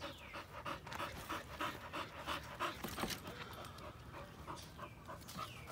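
A dog panting close by, quick rhythmic breaths at about three or four a second.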